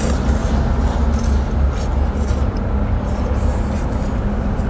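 Noodles slurped off chopsticks, faint short sucking sounds, over a steady low rumble with a faint hum.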